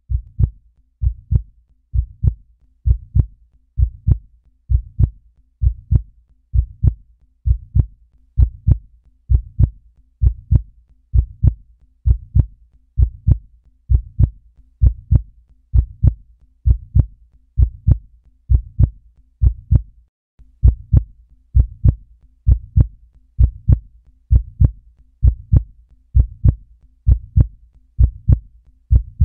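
Slow, steady heartbeat: paired low thumps, lub-dub, about once a second.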